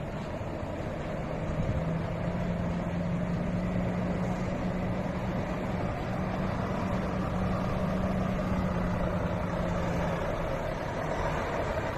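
Heavy haulage lorry's diesel engine running on the move, a steady drone that steps up in pitch about a second and a half in, rises again around the middle and drops back near the end.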